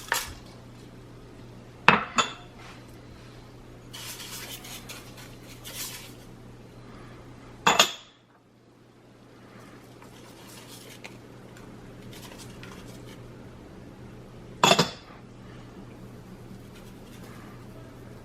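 Kitchen utensils and cookware clinking: a few sharp metal clinks several seconds apart, with softer rustling between, as spoons and spice containers knock against the pot while spices are added to the water.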